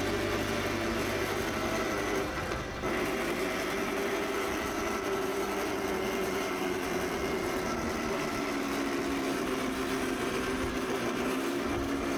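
Homemade 2000-watt, 48-volt electric go-kart's motor whining as the kart drives slowly, dipping briefly about two and a half seconds in, then running on.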